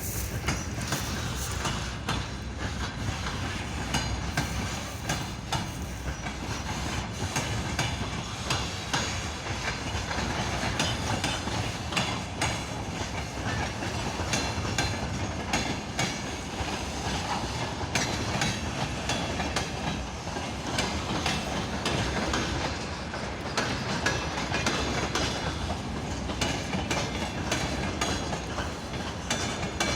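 Track-maintenance train rolling past, its wheels clicking and clattering over rail joints with a steady rumble underneath.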